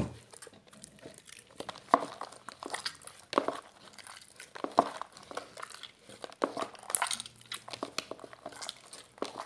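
Glue-and-detergent slime being stirred with a pencil, making irregular sticky clicks and squelches as it thickens.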